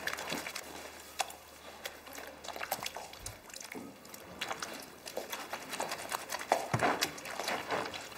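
Wet laundry being scrubbed and wrung by hand in a plastic basin of soapy water: irregular squelching and splashing.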